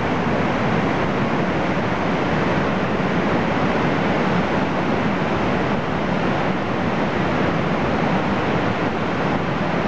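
Steady roar of Lava Falls, a big whitewater rapid on the Colorado River, running at about 16,600 cfs.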